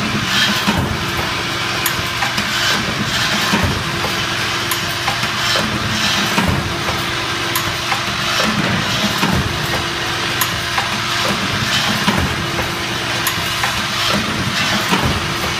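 Automatic bucket-handle making machine running as it forms iron wire into handles: a steady hum with a repeating hiss and clack about once a second.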